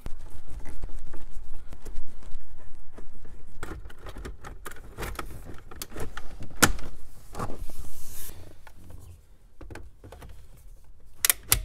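Plastic dashboard trim of a Nissan Sentra being handled and pressed into place: low rubbing and knocking with scattered clicks, a sharp snap about two-thirds of the way in, and a quick double click near the end.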